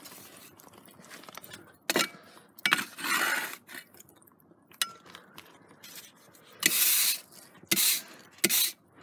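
A long-handled tool scraping and knocking across the firebrick floor of a wood-fired oven as wood and glowing embers are pushed to the back of the fire, with coals clinking. It comes as a few sharp knocks and several short scrapes, the longest about three seconds in and again about seven seconds in.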